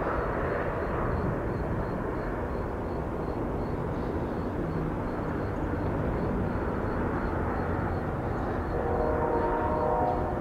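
Diesel locomotive of a FrontRunner MP36PH-3C, its EMD 16-645 prime mover running under power as it pulls a bilevel commuter train, a steady rumble. A short pitched chord sounds near the end.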